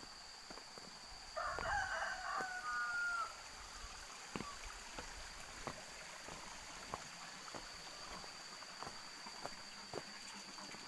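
A rooster crows once, about a second and a half in: a call of about two seconds ending on a held note. Faint footsteps tick on the stone path, under a steady high hum.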